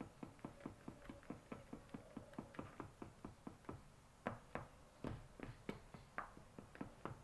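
Spatula stirring thick yellow batter in a metal bowl, ticking against the bowl about four to five times a second, then a few slower, louder knocks in the second half.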